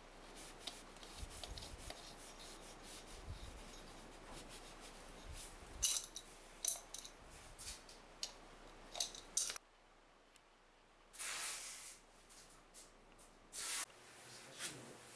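Small metal clicks and scrapes of a wrench working the nut of a braided stainless water hose on a wall angle stop valve. Two short hisses come near the end.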